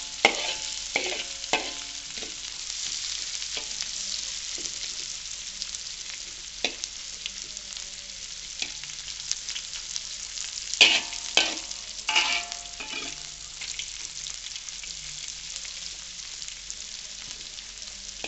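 Dried chillies and sliced aromatics sizzling in hot oil in a steel wok, with a metal ladle scraping and clanking against the wok as it stirs. The ringing clanks come in clusters near the start and again about two thirds of the way through.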